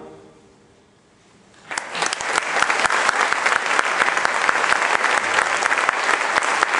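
The last reverberation of a concert band's final chord dies away, then after about a second of quiet the audience begins applauding, a dense, steady clapping that carries on.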